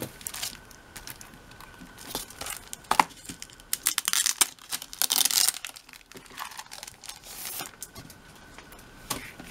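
Clear plastic shrink wrap being torn open and peeled off a photo book, crinkling in irregular bursts that are densest from about three to six seconds in, with one sharp snap about three seconds in.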